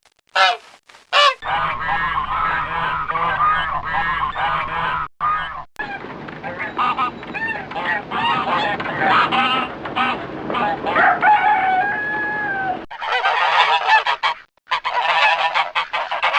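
A flock of waterfowl calling: a few separate calls at first, then many birds calling over one another in a dense chatter, broken by brief sudden gaps a few times.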